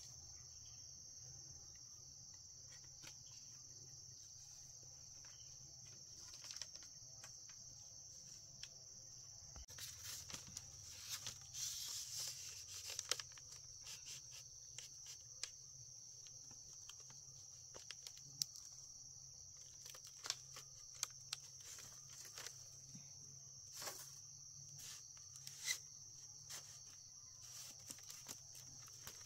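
Steady high-pitched insect chirring. From about a third of the way in it is joined by scattered clicks, taps and rustling, busiest for a few seconds and then sparser.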